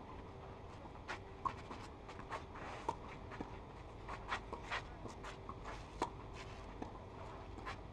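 Tennis rally on a clay court: a series of sharp racket strikes on the ball, the loudest about six seconds in, with players' feet scuffing on the clay between shots.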